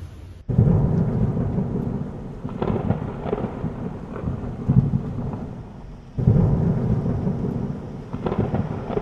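Thunderstorm sound effect: rain with rolling thunder. After a brief hiss, a loud thunderclap comes in suddenly about half a second in, rumbles on with crackles, and a second clap breaks about six seconds in.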